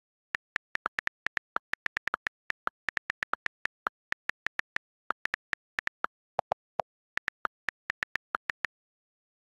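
iPad on-screen keyboard key clicks as text is typed: a quick, uneven run of short ticks, about four or five a second, with a brief pause about five seconds in and a few lower-pitched clicks just after six seconds.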